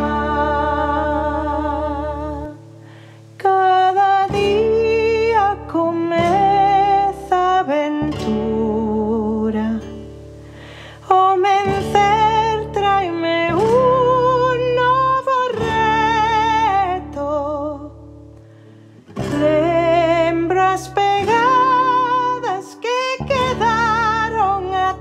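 A woman singing a slow song over instrumental accompaniment, her held notes wavering with vibrato, with short pauses between phrases.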